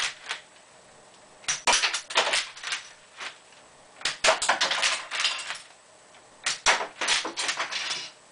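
Lego brick-shooting bullpup rifle being fired: three bursts of sharp plastic clicks and clatter, about a second and a half in, four seconds in and six and a half seconds in, each a rapid string of snaps lasting about a second, as the Lego mechanism cycles and fires bricks.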